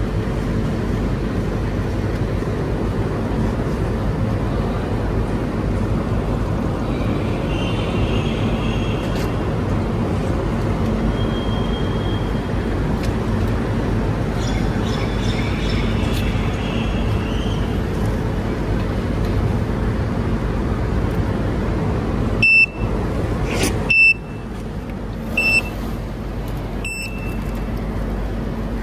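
iJooz orange juice vending machine working through its cycle, a steady low running noise with a few faint squeaks, then four short beeps about a second and a half apart near the end as the sealed cup is ready for pickup.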